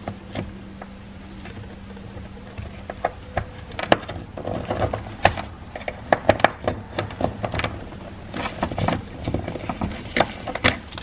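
Irregular small clicks and taps of a power steering filter housing being worked apart by hand at its spring-loaded end, coming thickly from about four seconds in. A faint steady hum sits under the first three seconds.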